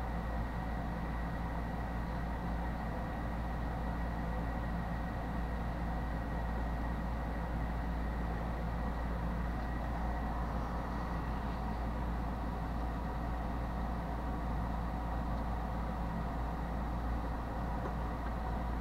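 Steady low electrical hum with an even hiss and a few faint steady tones; no clicks or other distinct events.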